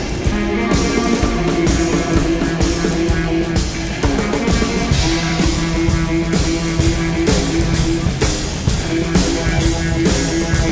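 Live band playing an instrumental rock passage: saxophone over drum kit and electric guitar, with steady held notes and a constant drum beat.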